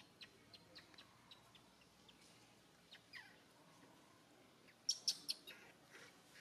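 Faint, short high-pitched animal chirps and squeaks scattered throughout, with a louder quick cluster of sharp squeaks about five seconds in.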